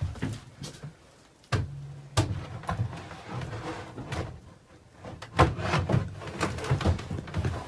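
Irregular knocks and clatters, with a short low hum about one and a half seconds in; the knocks come thick and fast from about halfway on.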